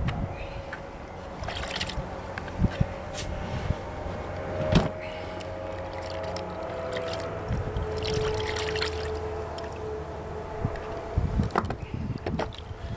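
A motor drones steadily in the background, its pitch drifting slightly, with scattered clinks and knocks as a knife and a plastic bowl are handled.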